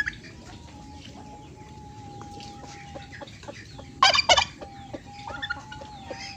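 Chickens clucking, with a loud two-part squawk about four seconds in, over a steady high thin tone.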